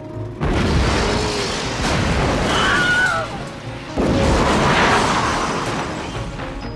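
Two explosion sound effects: a sudden loud blast about half a second in that runs for nearly three seconds, then a second blast at about four seconds that dies away over the next two and a half seconds.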